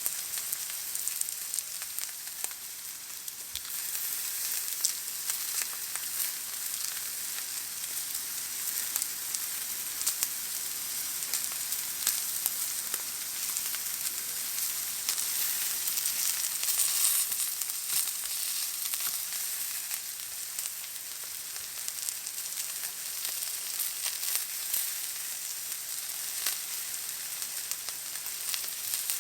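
Steak searing in a hot pan: a steady sizzle with constant fine crackling and spitting of fat, swelling a little about halfway through.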